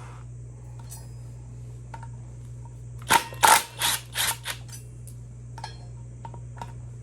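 Cordless impact gun spinning out already-loosened brake rotor bolts in short trigger bursts, about five quick pulses starting about three seconds in.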